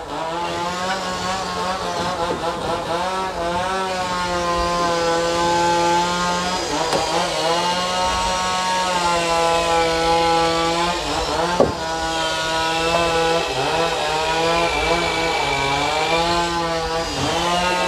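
A two-stroke chainsaw running steadily, its engine note sagging and picking up again several times as it works through wood. One sharp knock about two thirds of the way through.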